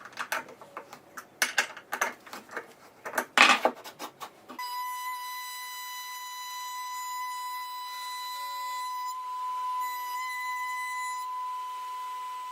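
Sharp metallic clicks and clinks for about four seconds, then a single steady high tone that is held, unchanging, to the end.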